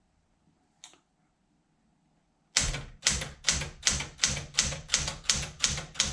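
Keys of a 1968 Smith-Corona Sterling manual portable typewriter being struck one after another, about three strokes a second, each typebar snapping against the platen. The strokes start about two and a half seconds in, after a single faint click.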